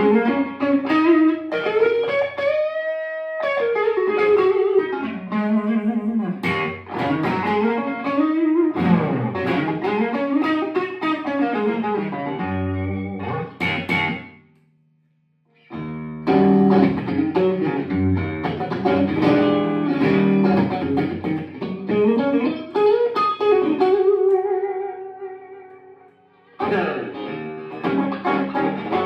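Custom Stratocaster electric guitar played in single-note melodic phrases with string bends and vibrato. It stops for about a second midway, and near the end a note dies away before the next phrase starts.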